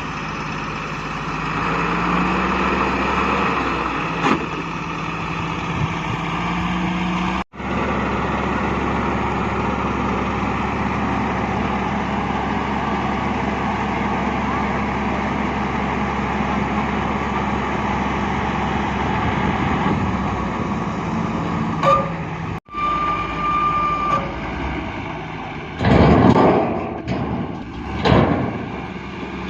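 Heavy diesel engine of earthmoving machinery running steadily under work, broken by two sudden brief cuts. A short steady tone sounds a little after two-thirds of the way through, and two loud rushing bursts come near the end.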